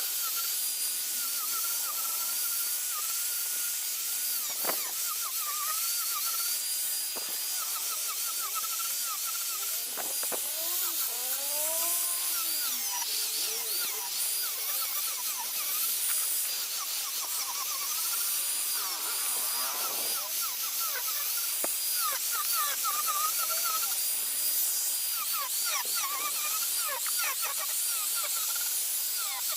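Small high-speed electric grinder cutting into wood during carving, running continuously with a high whine that wavers and dips in pitch as it bites and eases off, with a few sharp clicks.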